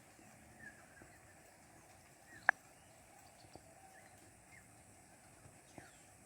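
Faint steady rain hiss with a few short, high bird chirps. One sharp loud tick about two and a half seconds in, and a few fainter ticks.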